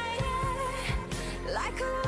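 Pop song recording with a slow, steady drum beat under a held, wavering melody line that glides upward near the end.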